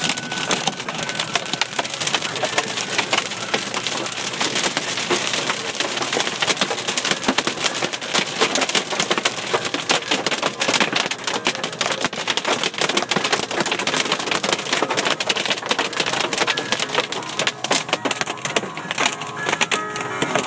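Hail hitting the roof and windows of a car, heard from inside the cabin: a dense, steady clatter of small impacts.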